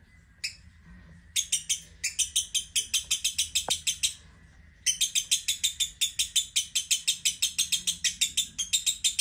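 Masked lovebird chattering in a long, fast trill of sharp high chirps, about six or seven a second. The trill starts about a second in, breaks off for under a second around the middle and then resumes.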